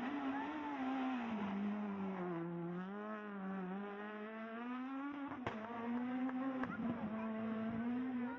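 Rally car's engine working hard through a bend on a tarmac stage: the revs drop as it brakes for the corner, then climb again and hold high as it powers away. Two sharp cracks come about five and a half and six and a half seconds in.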